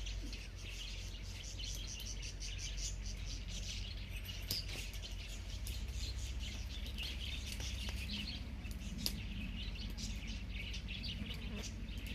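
Birds chirping rapidly and continuously in short high notes, over a steady low hum, with a few sharp clicks, the loudest about nine seconds in.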